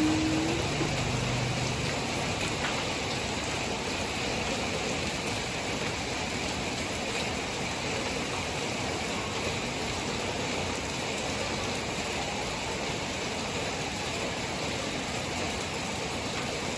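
Steady rain falling, an even hiss of rain with no let-up.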